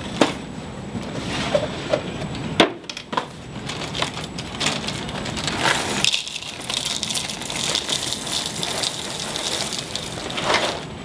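Dry breakfast cereal poured from a cardboard box into a plastic bowl, a steady rattling hiss from about halfway through until near the end. A few sharp knocks in the first few seconds as things are set on the desk.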